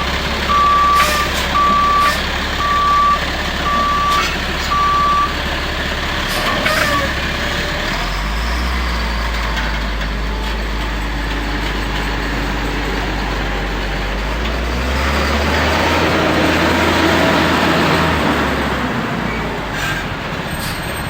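Heavy diesel work vehicle's backup alarm beeping about once a second, six times, while it reverses; then the engine runs on steadily and revs up louder for a few seconds past the middle.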